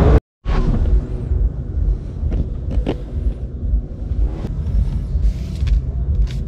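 Exhibition hall background noise: a steady low rumble with scattered short clicks and knocks, broken by a brief dropout just after the start.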